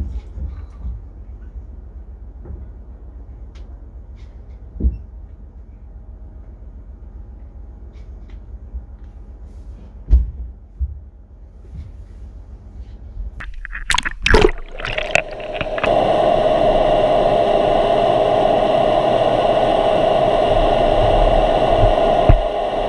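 Low rumble with a few dull knocks as a paddle is handled on a boat's deck. About two-thirds through there is a brief loud clatter. After it a steady hiss with a hum takes over: an action camera's microphone underwater beneath a boat's hull.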